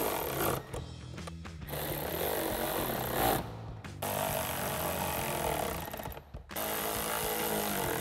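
Milwaukee cordless electric ratchet running in several bursts of a second or two, with short pauses, as it drives door-panel screws home with a 7 mm socket.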